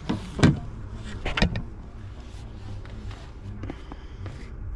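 Handling knocks and rustles, two louder ones in the first second and a half, as a plastic travel mug is picked up, over a steady low outdoor rumble.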